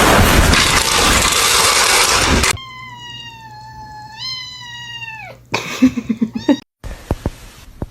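A loud harsh noise for the first two and a half seconds, cut off suddenly. Then a cat gives one long drawn-out meow of nearly three seconds that lifts in pitch partway and drops away at the end, followed by a few short clicks and knocks.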